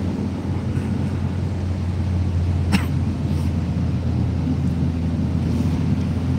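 Steady engine and road noise heard from inside a moving car's cabin, a low even hum. A single short click about three seconds in.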